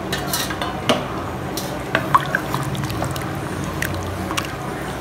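Liquid sloshing and dripping in a pressure cooker full of watery rice and mutton masala as a ladle stirs it, with scattered light clicks of the ladle against the pot.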